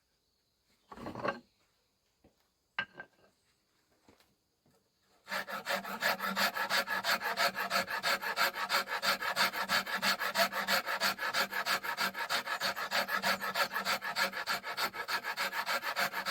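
Rasp or file worked briskly back and forth over a horn bow under construction, with fast, even strokes several times a second, starting about five seconds in after a couple of brief scrapes.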